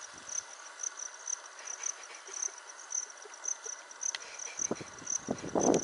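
An insect chirping steadily in short high pulses, about three a second. Near the end a louder burst of low rustling noise comes in over it.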